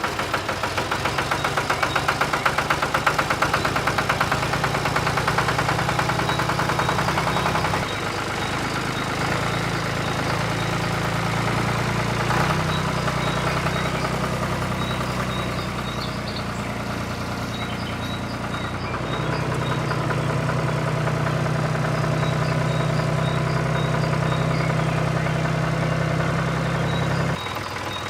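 A motor running steadily with an even low hum, its sound shifting abruptly about eight seconds in and dropping near the end.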